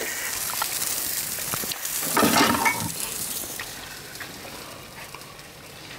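Food sizzling on the stove: a steady high hiss that slowly fades, with a louder rush about two seconds in.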